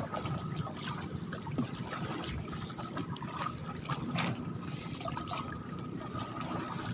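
Water trickling and dripping off a cast net as it is gathered in by hand out of lake water, with a few small splashes now and then.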